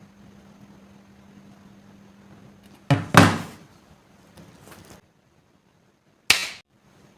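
Sharp knocks: two close together near the middle, each ringing off briefly, then a single one near the end, over a low steady hum.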